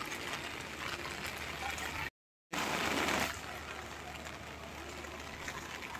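Steady hiss of rain falling, broken by a short silent gap about two seconds in.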